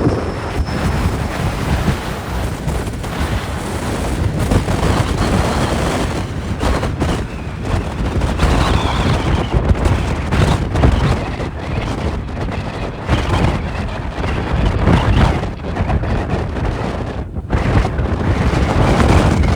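Strong gusty wind buffeting the microphone, rising and falling in gusts. Beneath it, about eight seconds in, a faint falling whine from the Air Busan Airbus A321's jet engines as it lands.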